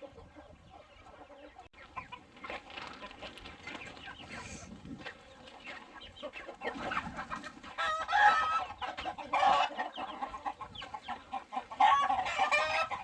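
A flock of Cheonggye chickens clucking, with louder, drawn-out calls about eight seconds in, again a second or so later, and near the end.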